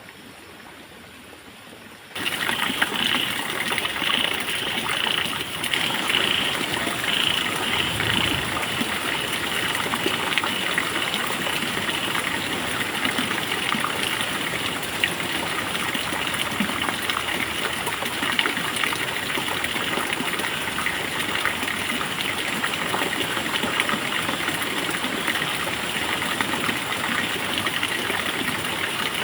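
Steady rush of running water, starting abruptly about two seconds in and holding even throughout.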